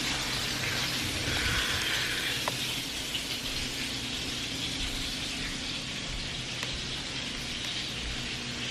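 Chicken frying in hot oil in a Fry Daddy deep fryer: a steady sizzle, briefly louder about a second and a half in, with a faint click near the middle.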